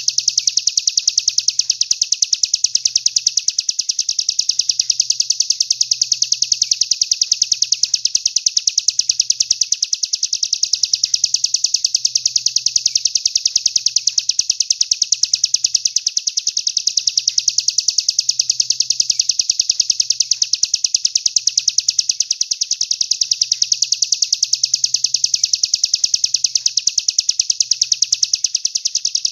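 A songbird's very fast, even trill of rapidly repeated high notes, continuous and unbroken, played as a masteran tutor recording for training competition songbirds.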